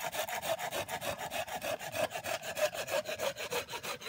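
Red-handled hand saw cutting through a wooden branch braced on a log stump, with fast, even back-and-forth strokes that stop just after the end.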